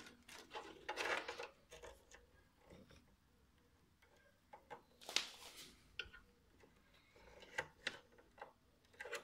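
Handling noises from a floppy drive ribbon cable and its plastic connector being worked onto the drive: scattered small clicks and brief rustles, the loudest about a second in and about five seconds in.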